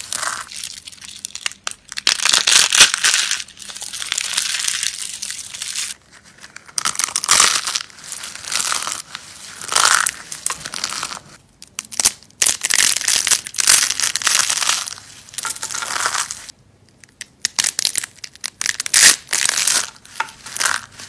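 Dry, vintage coloured soap being crushed and crumbled, giving crisp crackling crunches in irregular bursts with a few short pauses.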